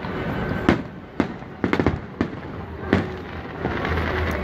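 Aerial fireworks bursting: a run of sharp bangs about every half second, with several cracks in quick succession about halfway through.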